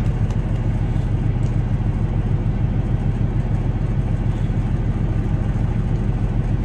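Semi-truck diesel engine idling, a steady low hum heard from inside the cab.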